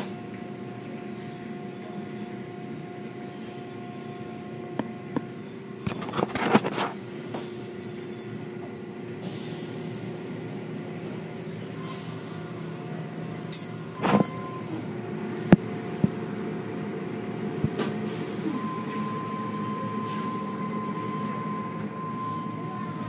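Automatic car wash tunnel machinery running: a steady motor hum with bursts of hissing spray, two loud bursts at about six and fourteen seconds in, and a few sharp knocks.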